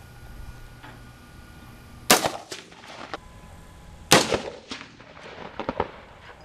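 Two loud shots from a custom-built AR-15 rifle, about two seconds apart, each followed by a few fainter cracks.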